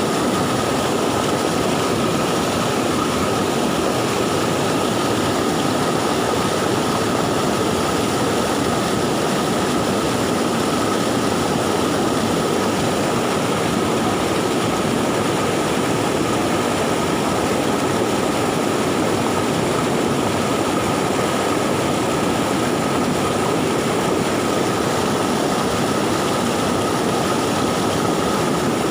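Swift, swollen river water rushing steadily after a flood, an even roar with a thin steady high tone running through it.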